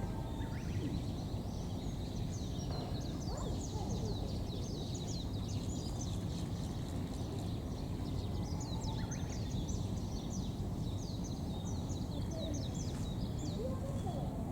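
Small birds chirping rapidly and continuously in many quick, high, falling notes, over a steady low background rumble.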